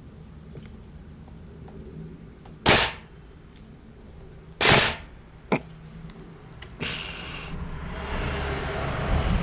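Tokyo Marui next-generation electric airsoft SCAR-L firing twice, two short loud bursts about two seconds apart, followed by a lighter click. A steady rushing noise builds near the end.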